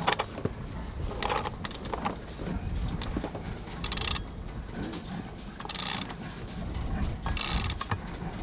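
Sailboat winch and rigging being worked to set the headsail: ratcheting and line running through the blocks in about five short bursts, over a low steady rumble.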